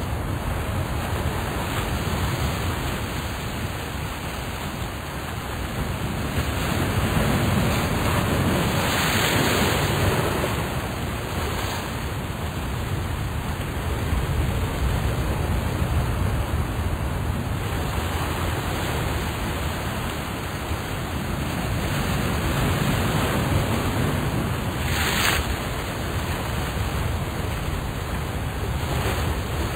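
Steady rushing noise like surf, slowly swelling and ebbing, with two brighter washes about nine and twenty-five seconds in.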